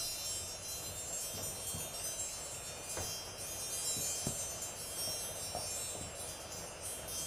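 Percussion chimes shimmering, a dense cluster of high ringing tones held together, with a few soft knocks underneath; the ringing cuts off near the end.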